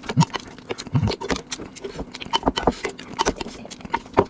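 A wooden spoon clicking and scraping against a plate as the last sauce is gathered up, many quick irregular clicks, with slurping from the spoon in the first second or so.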